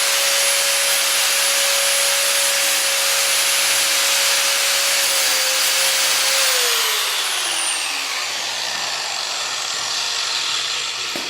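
Angle grinder running with a steady whine, grinding into an iPhone 6. About two-thirds of the way through, the motor's pitch falls as the grinder slows down, and the grinding noise fades out at the end.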